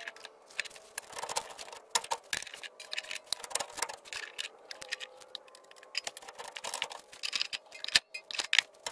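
Rapid, irregular metallic clicking and rattling from jacks being worked to lift the transmission off its mount.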